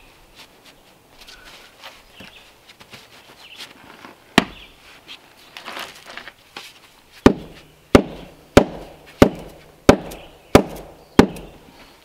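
A hand tool knocking on the end of a cordwood log round to seat it in wet mortar. There is one knock about four seconds in, then seven sharp, evenly spaced knocks, about one and a half a second, each with a short, low, hollow ring.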